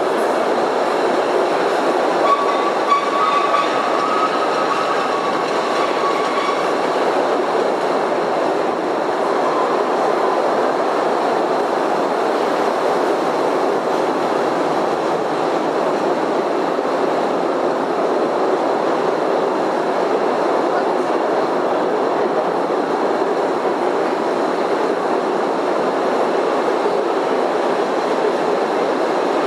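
The Postojna Cave tourist train rolling along its narrow-gauge track, a steady rumble of wheels and open carriages echoing in the cave tunnel. A thin wheel squeal sounds about two seconds in and lasts a few seconds.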